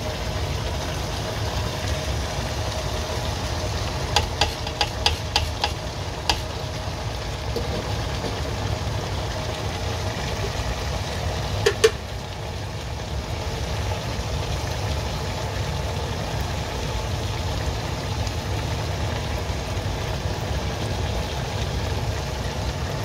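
Sharp taps of a utensil against the pot as part-cooked basmati rice is spooned onto the chicken biriyani masala: a quick run of about seven taps a few seconds in and a double tap near the middle, over a steady low kitchen hum.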